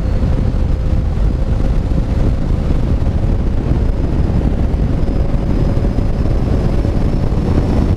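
Steady wind noise buffeting the microphone of a Honda NC750X motorcycle on the move, with the bike's parallel-twin engine running steadily underneath.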